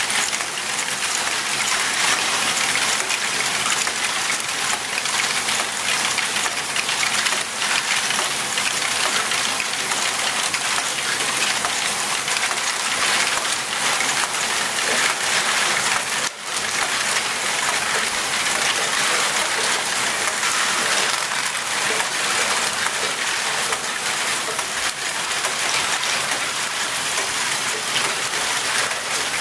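Many small plastic Lego balls clattering continuously through the modules of a large Lego Great Ball Contraption, a dense, steady rattle of tiny impacts, with the machine's gears turning. It drops out for a moment just past the middle.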